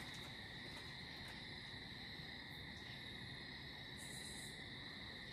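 Faint, steady high-pitched chirring of crickets over a low background hiss.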